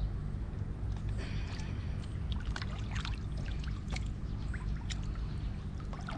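Water splashing and trickling in short, irregular bursts over a steady low rumble.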